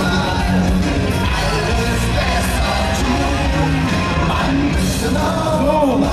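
Loud carnival party music with singing over a heavy bass.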